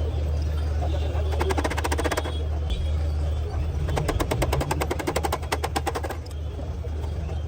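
Rapid clattering taps, about eleven a second, in two bursts, the second longer, over a steady low hum.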